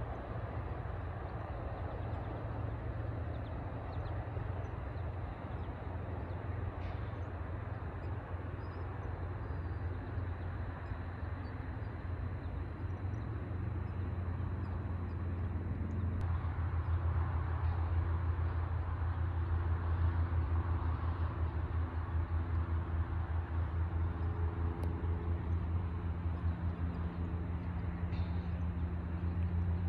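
Steady low rumble of outdoor vehicle traffic. About halfway through a motor's steady drone comes in and the sound grows louder.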